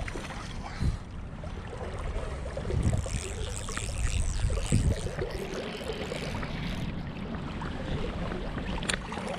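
River water running and splashing around a wading angler, with a hooked rainbow trout splashing at the surface at the start. A few dull thumps about one, three and five seconds in.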